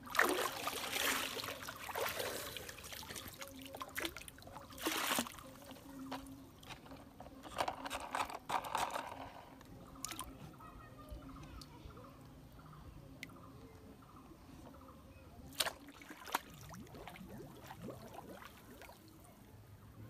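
Water splashing and sloshing as a plastic toy dump truck is pulled up out of murky water, with water pouring off it. Further irregular splashes and sloshes follow, strongest about five and eight to nine seconds in, with two short sharp clicks later on.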